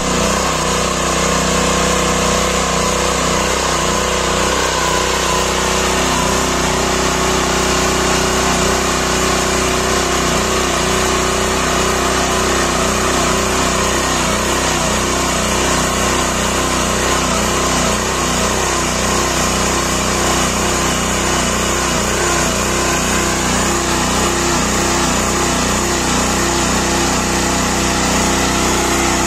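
Small single-cylinder air-cooled petrol engine of a walk-behind tiller running steadily under load as its tines dig and churn the soil.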